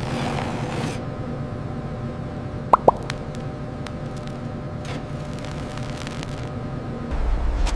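Molten gold in a furnace crucible: a steady low rumble with two quick liquid plops close together about three seconds in and a few faint crackles. The low rumble swells near the end.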